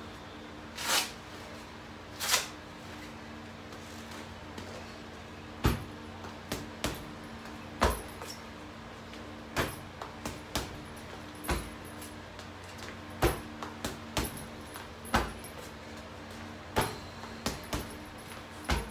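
Hook-and-loop wrist straps of boxing gloves ripping twice as they are fastened. Then gloved punches thud into an Everlast heavy bag, irregularly about once a second, sometimes in quick runs of two or three.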